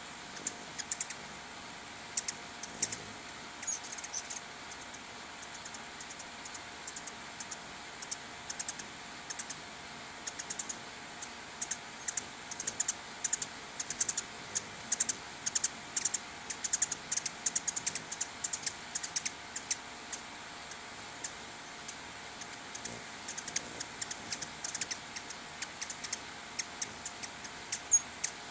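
Ruby-throated hummingbirds giving chip calls: rapid, irregular high-pitched ticks in clusters, busiest in the middle.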